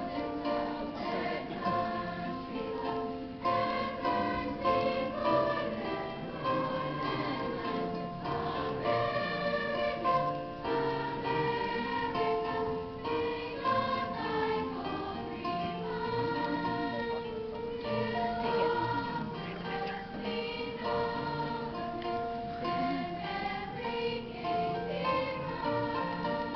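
A school choir of young voices singing a song together, with notes held and changing continuously.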